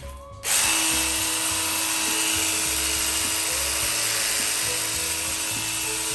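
Cordless pressure washer running and spraying water: a steady, loud hiss of the jet with a steady motor tone beneath it, starting suddenly about half a second in.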